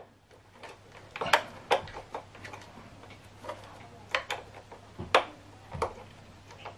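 Irregular light plastic clicks and taps as an optical cable's plug is worked into the optical input of a Sony HT-G700 soundbar, over a faint low steady hum.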